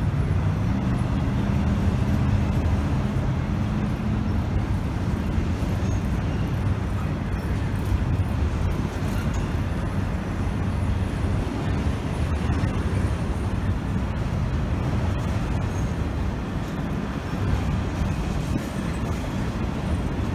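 Freight train rumbling past, with a diesel locomotive's engine drone that steps up in pitch about a second in and fades into the steady rumble after about four seconds.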